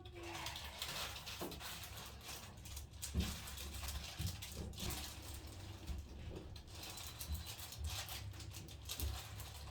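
Rustling and soft scuffing from clothing and hands moving against the body and treatment table during a stretch, with many small irregular taps, over a low steady hum.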